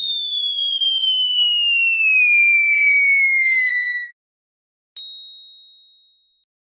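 Cartoon falling-whistle sound effect: a long whistle gliding steadily down in pitch for about four seconds, then cut off. About a second later a single bright ding rings out and fades away.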